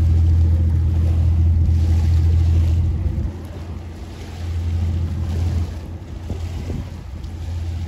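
Low, steady drone of passing ships' engines carried over the water, mixed with wind on the microphone. The drone drops away about three seconds in, swells again briefly, then fades.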